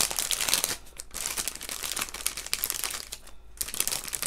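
Clear plastic bag of heart stickers crinkling in the hands as it is pulled open, an irregular crackle that is loudest in the first second.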